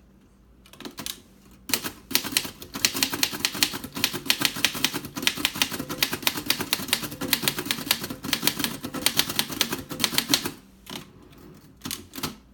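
A 1951 Erika Model 8 manual portable typewriter being typed on: a fast, steady run of key and typebar strikes for about nine seconds, starting a couple of seconds in. It trails off into a few scattered strokes near the end. This is a standard 'quick brown fox' typing sample.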